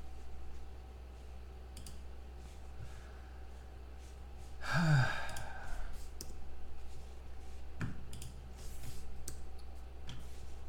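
A man's sigh about halfway through, one breathy exhale falling in pitch. Faint scattered clicks and a low steady hum sit under it.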